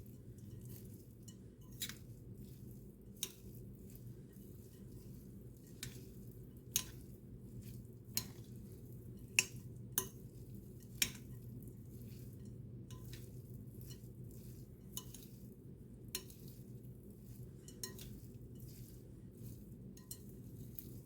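A spoon stirring a thick rice and vegetable casserole mixture in a dish, knocking and clinking against the sides with irregular clicks every second or two, a few louder ones about nine to eleven seconds in.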